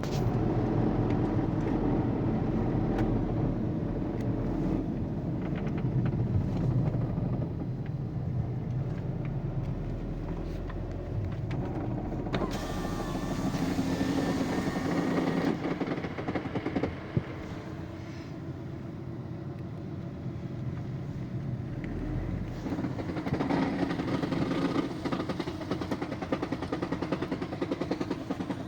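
Volkswagen Passat B6 with a six-speed DSG gearbox being driven, engine and drivetrain running steadily, with one sharp knock about seventeen seconds in. The owner reports vibration and knocking under engine braking.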